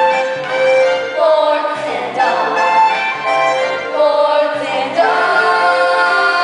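Show-tune music from a stage musical: a group of young girls singing held notes over an accompaniment, with the chords changing about once a second over a low bass line.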